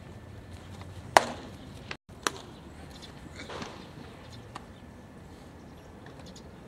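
A baseball smacking into a catcher's leather mitt: a sharp, loud crack about a second in, then a second, quieter smack about a second later, over faint open-air ballpark background.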